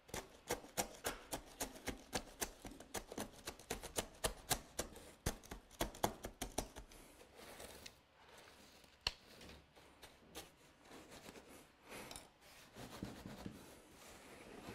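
A rapid run of small, sharp clicks and scrapes from hand tools working a bonsai during repotting, several a second for about seven seconds, then sparser and fainter.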